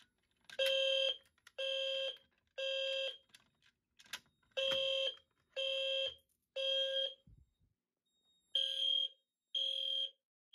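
EST fire alarm horns, a low-frequency horn and a Genesis horn strobe, sounding together: a low tone and a high shrill tone in three half-second blasts, then a pause, repeated about three times. This is the temporal-three evacuation signal of a general alarm set off by a manual pull station.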